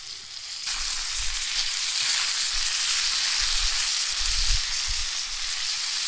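Butter sizzling in a cast-iron skillet as a brook trout fillet and grated-potato hash browns fry over a campfire. The steady sizzle gets suddenly louder just under a second in.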